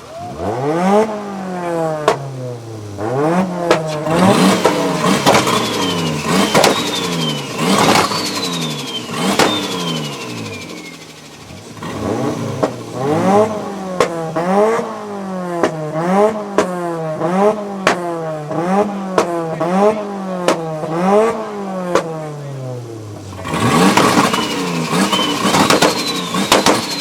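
Toyota Supra's single-turbo 2JZ-GTE straight-six revved over and over, about once a second, with a lull about halfway through. After several of the revs a high turbo whistle falls in pitch, and sharp cracks come between the revs.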